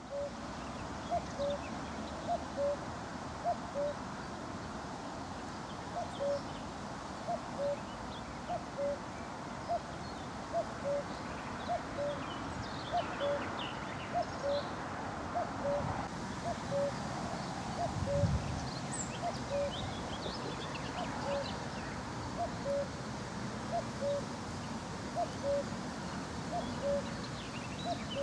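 Male common cuckoo calling its two-note "cu-coo", the second note lower, repeated about every second and a half with one short break early on. Small birds chirp faintly behind it, and there is a single low thud a little past the middle.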